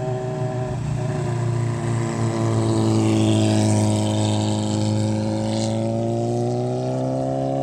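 Motorcycle engines running at a steady speed, one continuous engine drone whose pitch sags a little and then rises again toward the end.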